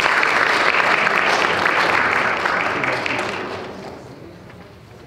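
Audience applause, a dense patter of many hands clapping, that dies away about three to four seconds in.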